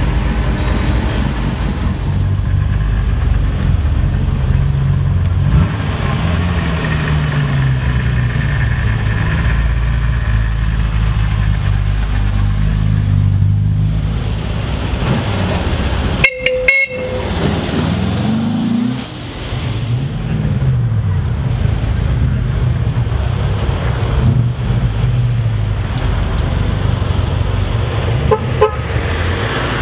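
Classic sports car engines running and revving as the cars drive off and pull in, the pitch rising and falling several times. A car horn gives a short toot about halfway through and a fainter toot near the end.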